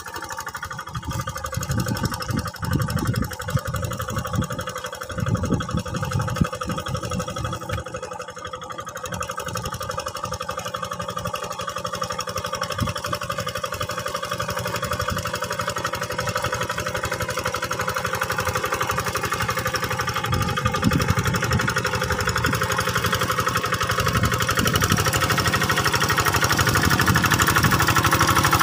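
Quick G600 hand tractor's single-cylinder diesel engine running steadily under load while tilling, growing louder as it comes closer.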